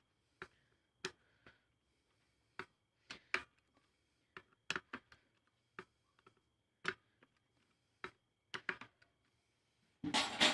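Scattered sharp metallic clicks, irregular and about one or two a second, from a socket wrench working the bolts of a Bajaj Discover 125's aluminium clutch pressure plate as they are tightened a little at a time. Near the end, a louder metallic clatter.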